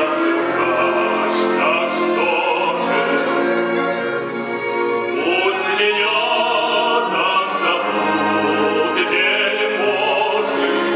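Operatic singing with orchestral accompaniment: a voice holding and sliding between notes over sustained strings.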